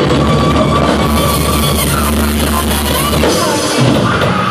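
Live rock band with drum kit, saxophone and keyboard playing a loud held chord under a cymbal wash. It breaks off about three seconds in, the close of the song.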